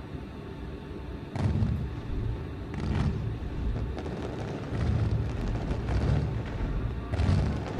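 Fireworks going off: a series of deep booms, about four or five, some with crackling alongside, over a low steady rumble.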